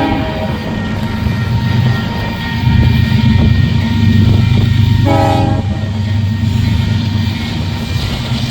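Union Pacific freight locomotive's air horn: a blast cuts off just after the start and one short toot sounds about five seconds in, over the heavy low rumble of the train.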